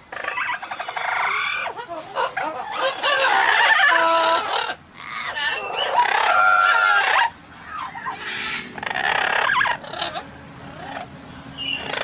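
Amazon parrots calling: a string of squawks and short pitched calls, broken by brief pauses.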